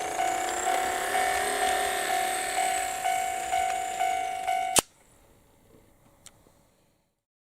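Model level crossing's electronic warning bell ringing at about two strikes a second, with a model train's motor whine rising and then falling in pitch beneath it. It stops abruptly with a click just under five seconds in, and only faint noise follows.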